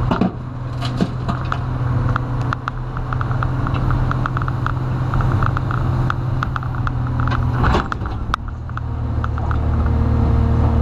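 Komatsu PC300 excavator's diesel engine running under hydraulic load, heard from inside the cab, with scattered clanks and knocks from the bucket and boom as it swings and digs into a dirt pile. The engine grows louder near the end as the bucket digs in.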